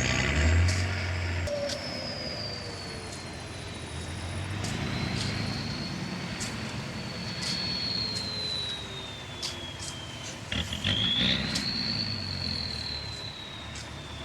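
Heavy earthmoving machinery running, a low diesel rumble with a high whine that drifts slowly up and down in pitch throughout, and scattered sharp metallic clanks.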